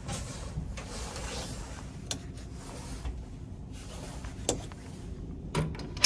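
Cabin door handled on a ferry: soft rustling as the door swings open, a few sharp clicks, then a cluster of latch and lever-handle clicks near the end as it is pulled shut, over a steady low hum from the ship.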